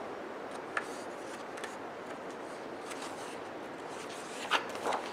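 Page of a picture book being turned by hand: a few soft paper flicks and rustles over a steady room hiss, with a couple of slightly louder ones near the end.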